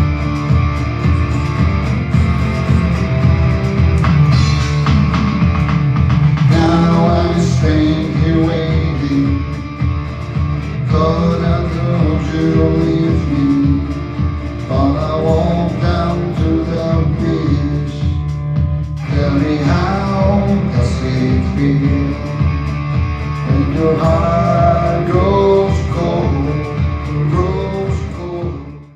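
Music with a steady, bass-heavy pulsing beat. A melodic line comes in over it about six seconds in, and the track fades out at the very end.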